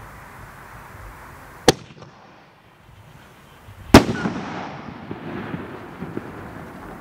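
Sir Lancelot aerial firework: a sharp launch report about a second and a half in, then the shell bursting loudly about two seconds later, followed by scattered faint crackles as the burst fades.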